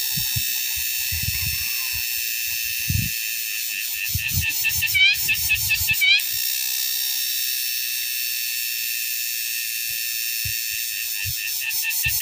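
Cicadas singing: a steady high-pitched buzzing drone, joined about four to six seconds in by a louder pulsing phrase of rising sweeps.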